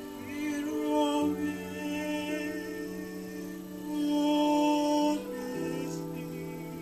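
Slow worship music: sustained instrumental chords with a voice singing long held notes, loudest about four seconds in.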